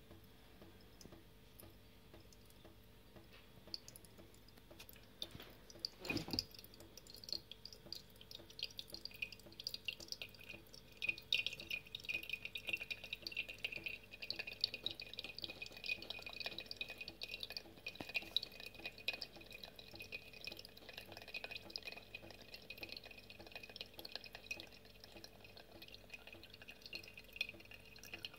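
Distillate from a distillation column dripping and trickling through a plastic fraction-collector funnel into a glass jar, with quick drips ringing on the glass from about ten seconds in. A single knock comes about six seconds in.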